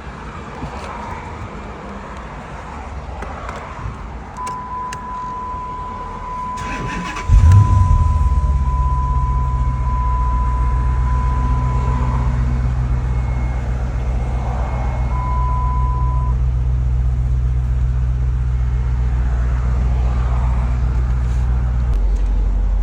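Dodge Ram engine cranking briefly and catching about seven seconds in, then idling steadily: the first start after its fuel pump was replaced. A steady high-pitched warning tone sounds for several seconds before and after the start, and once more briefly.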